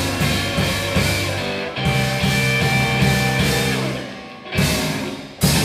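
Rock band music with electric guitar and drums. It breaks off and restarts abruptly twice near the end, with a sudden change in sound about two seconds in.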